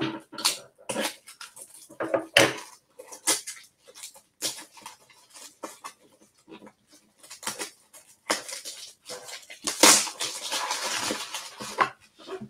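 Irregular clicks, taps and knocks of small objects being handled, with a longer stretch of rustling near the end.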